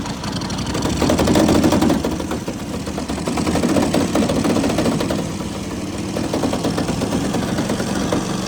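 Go-kart's small gasoline engine running, revving up sharply about a second in and then settling to a steady, rougher run.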